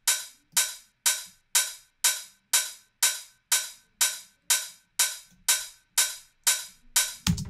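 Roland TR-909-style open hi-hat sample looping, about two hits a second, each a bright hiss that decays quickly. It plays through the Xfer Dimension Expander chorus with the dry/wet turned partly down, blending a little of the widened sound with the centred dry hat. A short low thump comes near the end.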